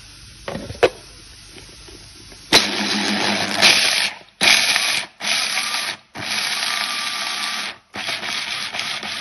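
Electric food processor grinding fried almonds, run in five short pulses with brief stops between them. A sharp click comes about a second in, before the motor starts.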